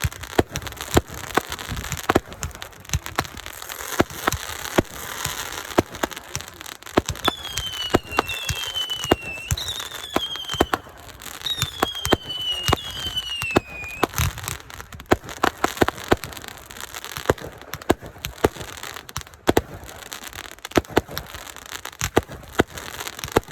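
Consumer fireworks going off in quick succession, with many sharp bangs over a running crackle. Around the middle come several whistling shells, each whistle falling in pitch over a second or two.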